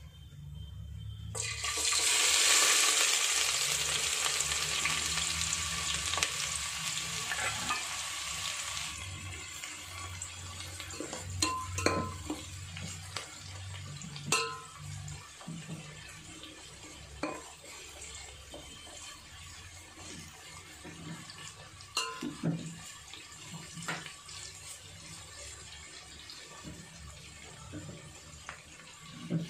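Sliced onions hitting hot oil in a deep aluminium pot: a sudden loud sizzle about a second and a half in, the start of deep-frying the onions. The sizzle fades over the next several seconds to a quieter, steady frying sizzle, with occasional clinks of a metal slotted skimmer against the pot as the onions are stirred.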